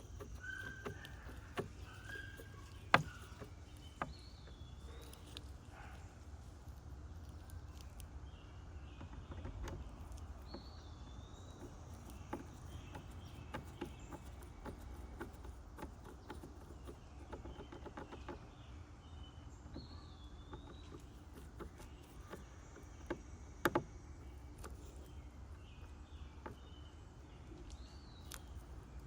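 Songbirds calling repeatedly, with short swooping calls every few seconds over a steady low rumble. A few sharp clicks or knocks come through, the loudest about 3 seconds in and another near 24 seconds.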